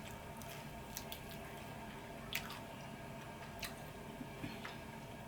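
Faint, sparse wet mouth clicks and smacks of someone eating sauced chicken wings close to the microphone, a few short ones about a second apart.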